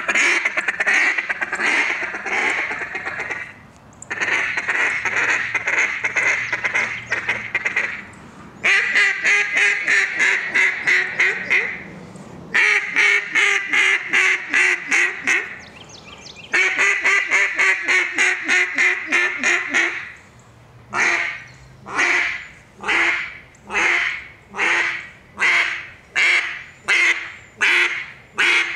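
Acrylic Sitka RNT Mondo LA duck call blown by mouth in quacking runs: five bursts of rapid, closely packed quacks with short breaths between them, then a slower string of single quacks, about one every 0.7 seconds, near the end.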